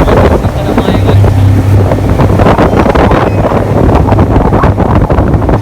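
Speedboat engine running steadily at speed, a low hum under the rush of wind buffeting the microphone.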